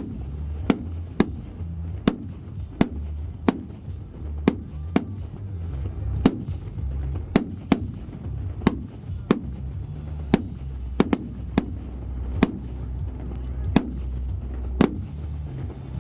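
Fireworks going off in a steady string of sharp bangs, about three every two seconds, over a low continuous rumble.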